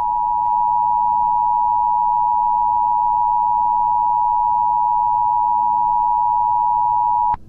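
Emergency Alert System attention signal: a steady two-tone alert tone that cuts off abruptly near the end, the signal that an emergency message follows.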